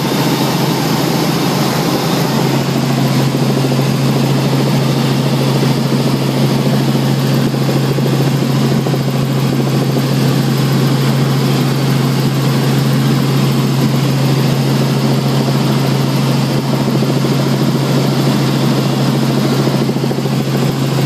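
Helicopter in steady flight heard from inside the cabin: rotor and engine running at a constant pitch, a strong low hum under an even rushing noise.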